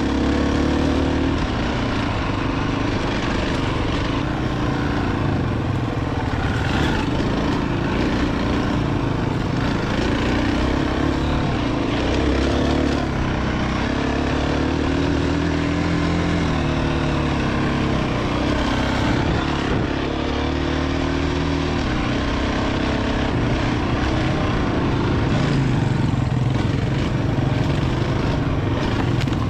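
Dirt bike engine running while being ridden, its pitch rising and falling again and again as the throttle is opened and closed.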